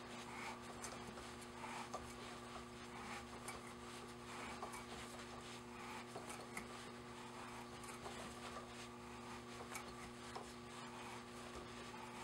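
A 1/8-inch pipe tap being turned back and forth by hand in a tap wrench as it cuts threads in a vise-held part, giving faint scattered scraping and small clicks as the chips break. A steady low hum runs underneath.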